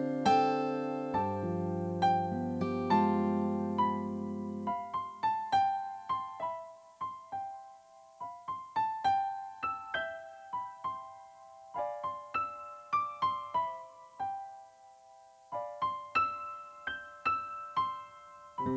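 Background piano music: a slow, gentle melody of single notes that ring and fade. Low chords sound under it for the first few seconds, then the melody goes on alone, with a brief lull about three-quarters through.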